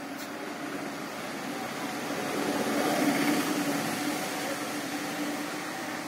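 A motor vehicle passing by: a steady engine hum that swells to its loudest about halfway through and then fades.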